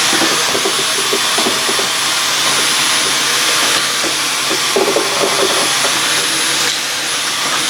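Vacuum cleaner running steadily: a loud rushing noise with a thin high whine. It cuts off just after the end.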